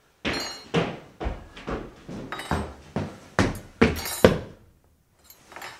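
A series of about ten sharp knocks or strikes, roughly two a second, each ringing out briefly, with a couple of fainter ones near the end.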